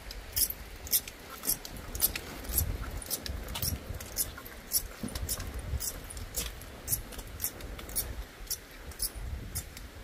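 Footsteps crunching on a snowy, icy path at a walking pace, about two sharp crunches a second, over a low rumble of wind or handling on the microphone.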